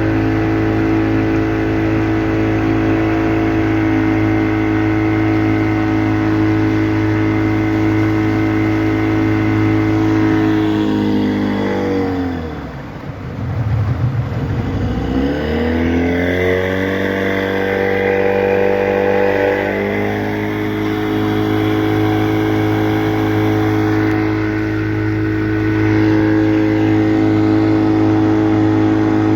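Motorboat engine running steadily. About eleven seconds in, it slows and drops in pitch, then picks up again a few seconds later and runs on steadily.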